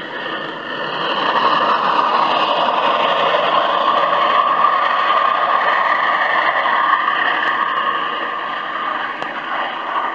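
Ex-Rahway Valley 2-8-0 steam locomotive #15 on the move, heard from an old vinyl record: a steady noise of a running train that swells about a second in and eases off near the end.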